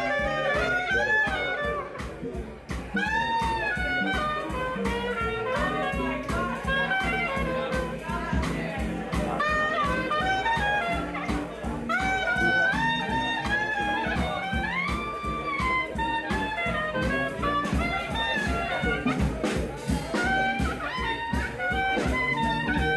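Traditional jazz band playing live, with a clarinet carrying a bending, ornamented lead line over guitar and drums keeping a steady beat.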